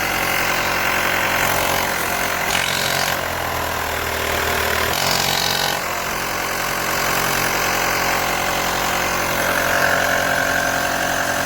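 A motor running steadily with an even hum of several pitches, and a brief change in its tone from about two and a half to six seconds in.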